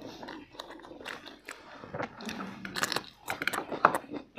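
People chewing and crunching food, with irregular short crisp crunches and mouth clicks.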